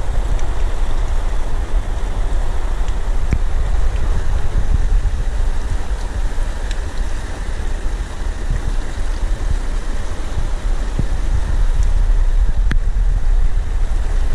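Fast-flowing river rushing over rocks in a steady roar, with wind buffeting the microphone.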